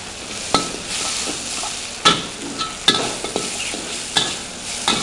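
Ingredients sizzling in hot oil in a wok while being stir-fried, with a steady hiss and sharp clinks of the spatula striking the wok every second or so.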